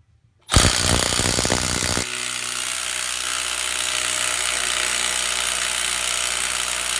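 Milwaukee M12 3/8-inch cordless impact wrench hammering on a car's lug nut, freshly charged and on power setting 2, loosening it. It starts suddenly about half a second in with rapid hammering, and about two seconds in the sound turns steadier and keeps running.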